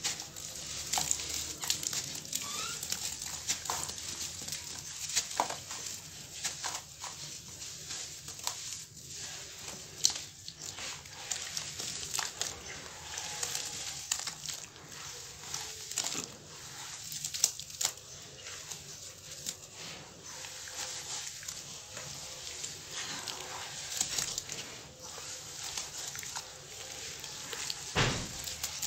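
Bare hands crushing and crumbling a damp sand-and-cement block in a metal tray: continuous gritty crunching and crackling, with a heavier thump near the end.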